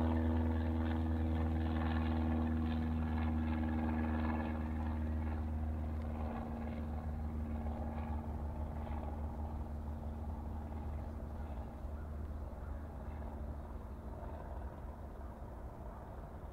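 Jet engines of a Boeing KC-46A Pegasus tanker, its two Pratt & Whitney PW4062 turbofans, running as it rolls along the runway: a steady rumble with a low hum that slowly fades.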